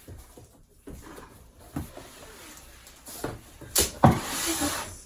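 Cardboard box and protective packaging handled during unboxing of a Cricut Maker: a few light knocks and scrapes, then a louder rustling slide near the end as the machine is drawn out of its packing.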